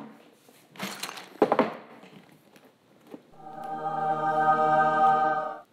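Rustling and a sharp knock as a chest is handled onto a desk, then a choir's held 'aah' chord that swells in and cuts off suddenly after about two seconds, a heavenly reveal sound effect for opening the chest.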